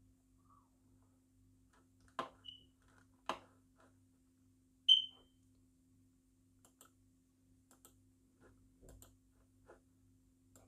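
A short, high-pitched electronic beep about five seconds in, the loudest sound, with a fainter one shortly before. Two sharp clicks come just ahead of them, and a low steady hum runs underneath.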